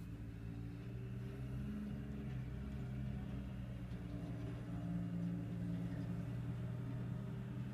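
New Holland tractor's diesel engine running steadily as it hauls a trailer through snow, a low even drone whose pitch shifts slightly now and then.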